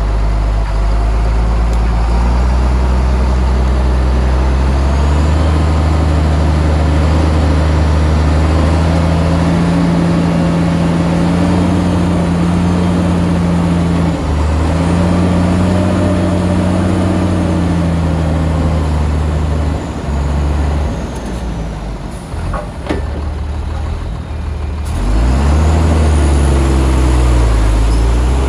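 A heavy construction machine's diesel engine working, its pitch rising and falling as it revs up and down. It eases off about twenty seconds in, with a couple of sharp knocks, then revs up again near the end.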